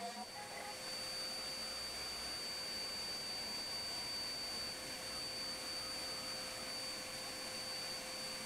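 CNC router running a cutting job: steady noise from the router spindle and its dust-collection vacuum, with a constant high-pitched whine over it.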